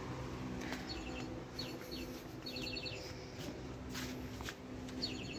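Groups of short, high, bird-like chirps recurring every second or so over a low steady hum.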